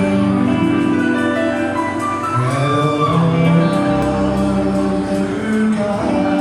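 Rockabilly band playing live, with a singer holding long sung notes over the band.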